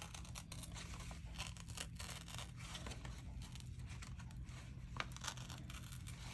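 A sheet of paper being torn by hand along a lightly folded crease: a run of short, irregular rips and crackles, with a faint steady low hum underneath.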